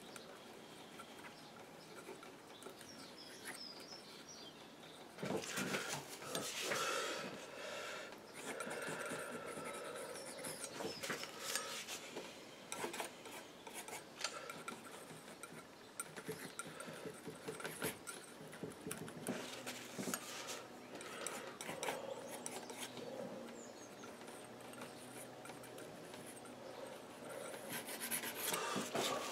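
Palette knife scraping and spreading oil paint, on the painting board and on the palette, in a run of short scraping strokes. The strokes are loudest about five seconds in and again near the end.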